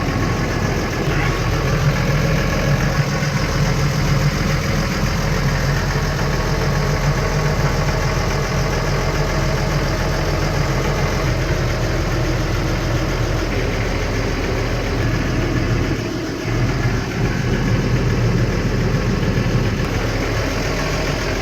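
Case IH Puma 155 tractor's six-cylinder diesel engine idling steadily, with a brief dip in the sound about sixteen seconds in.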